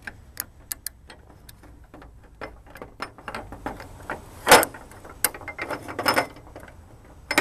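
Irregular metal clicks and clinks from a serpentine belt idler pulley being worked apart by hand, with a sharper clack about halfway through and a brief scrape shortly after.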